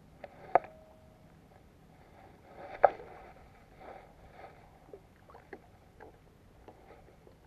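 Sharp clicks and knocks from handling a spinning rod and reel. The two loudest come about half a second and three seconds in, followed by lighter scattered taps.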